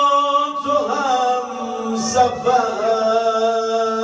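A solo male eulogist (maddah) singing a Shia mourning elegy, drawing one syllable out into long held notes. The pitch turns a few times about a second in, then settles on a lower held note.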